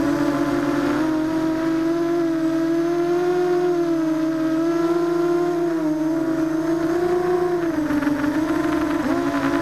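ZMR250 FPV quadcopter's motors and propellers whining in flight, heard close up from the onboard camera. The pitch wavers up and down with the throttle, dips sharply and jumps back up about nine seconds in.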